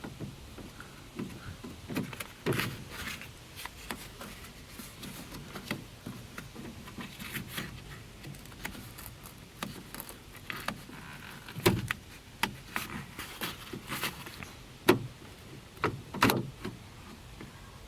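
Irregular clicks, knocks and rattles of hands working the interior door handle assembly loose from a 2003 Ford Windstar's door panel, with a few louder knocks near the end.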